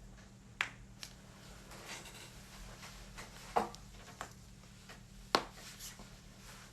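Joints cracking during an adjustment: sharp, sudden pops, three loud ones a few seconds apart with fainter clicks between, the last the loudest, over a steady low hum.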